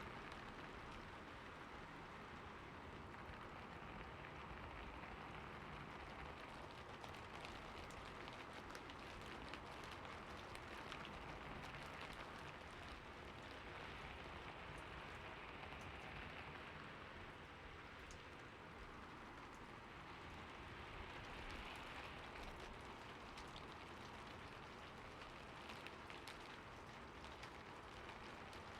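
Soft, steady rain with many fine drop ticks.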